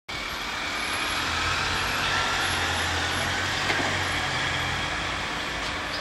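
A motor vehicle engine running, with a low steady hum and road-noise hiss; the hum fades about five seconds in.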